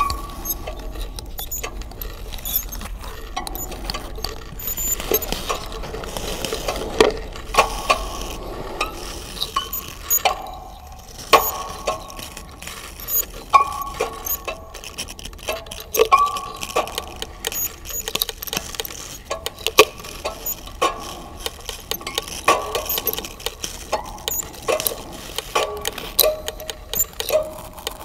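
Erjumex, a single-stringed, erhu-like instrument with juice-can resonators, played in short notes that shift in pitch, with scratchy clicks and scrapes between them.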